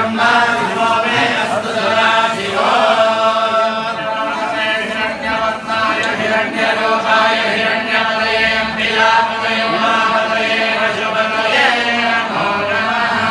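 Group of male priests chanting a Vedic hymn together in long held notes.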